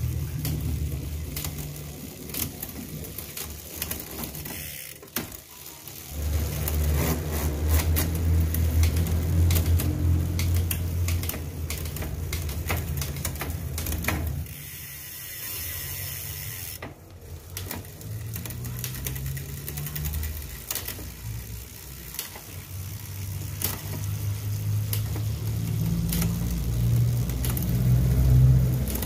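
Bicycle drivetrain running on a repair stand: the chain turns over the LTwoo A7 10-speed cassette and rear derailleur as the rear wheel spins, a low whir with rapid fine clicking. It slows and dies away briefly twice, then picks up again.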